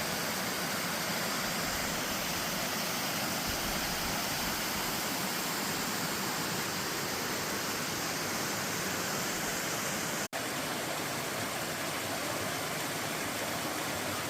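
Waterfall water pouring down, a steady loud rushing hiss; it cuts out for an instant about ten seconds in, then carries on unchanged.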